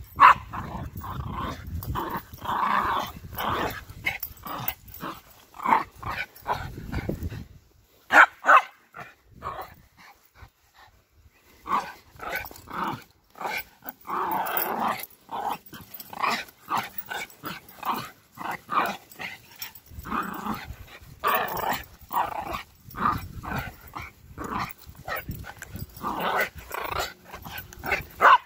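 Small curly-coated dog growling and barking in play, in many short irregular bursts, with a pause of a few seconds about a third of the way in.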